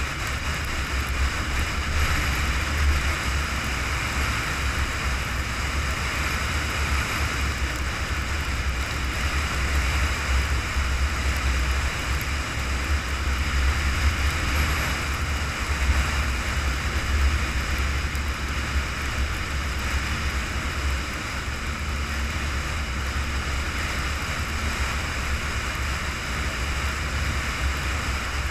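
A vehicle cruising at highway speed: steady low rumble of engine and tyres on pavement, with a constant hiss of wind and road noise.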